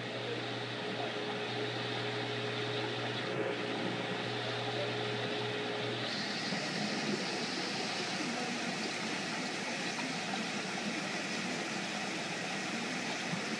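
Steady background hiss with a low hum from running equipment, typical of an aquarium's pumps and water flow. The hum cuts out about six seconds in, and the hiss then gets brighter.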